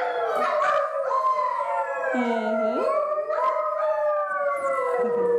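A group of children imitating wolves, howling together: several long, overlapping howls that slide down and up in pitch.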